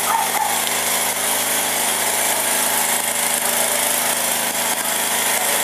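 A steady engine drone under a loud, even hiss, running without a break.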